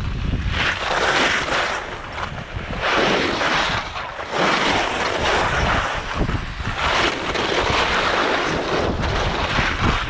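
Wind buffeting an action camera's microphone during a ski run, over a loud hiss of sliding on snow that surges and fades every second or two.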